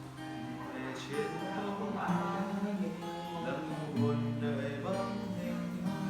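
Music: acoustic guitar playing held chords, changing chord about two seconds in and again about four seconds in.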